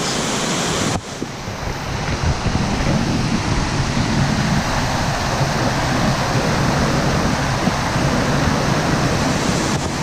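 White water of a small waterfall rushing steadily over rocks, with some wind buffeting the microphone.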